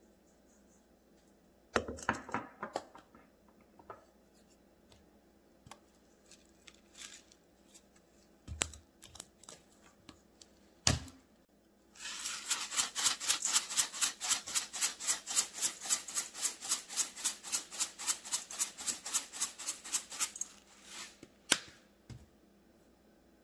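A bag of dry ingredients shaken over a stainless steel mixing bowl, making a loud, even rustling rhythm of about five shakes a second for some eight seconds. Before it come scattered rustles and a few sharp taps as seasoning is shaken into the bowl.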